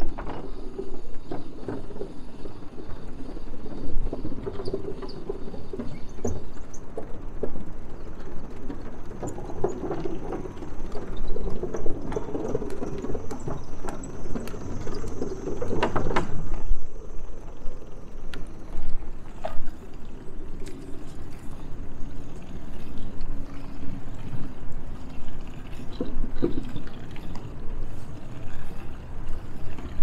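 Bicycle rolling over a wooden plank boardwalk: a steady tyre rumble with scattered clicks and rattles from the bike, and a louder rattling bump about halfway through.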